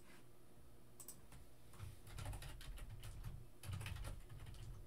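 Typing on a computer keyboard: a single click about a second in, then a quick run of keystrokes from about two seconds in, with a low thud under some of them.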